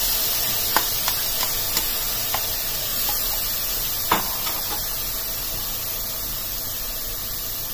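Dry soya granules tipped from a glass bowl into a nonstick pot: scattered light clicks and ticks of granules and bowl against the pot, the sharpest about four seconds in, over a steady hiss.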